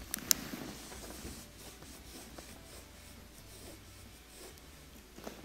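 Hands turning the dishwasher's water supply valve back on under the sink: two light clicks at the start, then soft rubbing and scraping, and one sharp click near the end.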